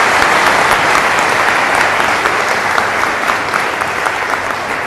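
Large audience applauding: dense, steady clapping that slowly fades toward the end.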